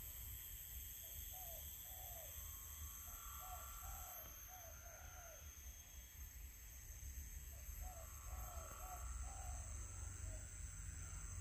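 Faint bird calls in three runs of short, arched notes, several notes to a run, over a steady high drone of insects.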